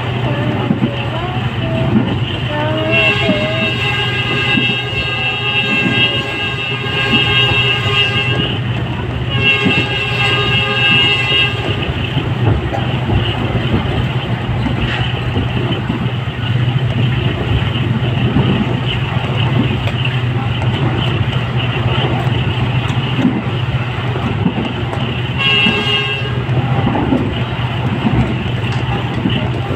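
Passenger train running, heard from inside a carriage, with a steady low rumble and the locomotive horn sounding: a long blast starting about three seconds in, a second shorter one right after it, and a brief toot near the end.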